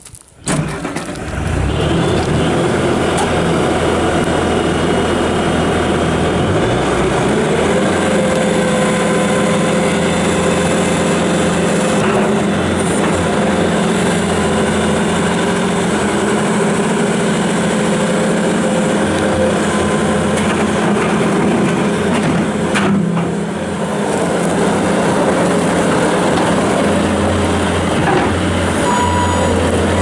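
2016 Bobcat S650 skid steer loader's 74 hp turbo diesel engine starting within the first second, then running as the machine drives about and raises its bucket. Its pitch shifts now and then and dips briefly about two-thirds of the way through.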